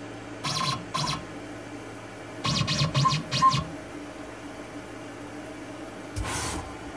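CNC router cutting white plastic: the spindle runs with a steady hum, broken three times by short bursts of musical motor whine and cutting noise as the router bit moves through the sheet, about half a second in, for about a second from around two and a half seconds in, and briefly near the end.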